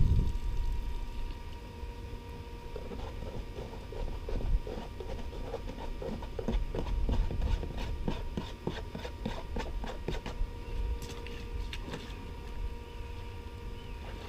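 Quick, irregular clatter of gravel and small stones, mostly from about three to twelve seconds in, over the steady hum of a small pump engine running the high banker.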